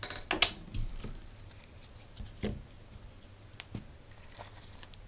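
Handling noise: a cluster of sharp clicks near the start, then a few scattered single taps, as a small woofer speaker and its wires are picked up and fitted into a PVC elbow pipe.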